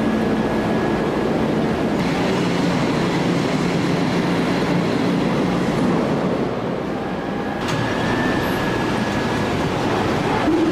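Heavy forge-shop machinery running: a steady, dense mechanical noise with faint humming tones, as a forging manipulator and overhead crane handle a glowing forging, with no hammer blows.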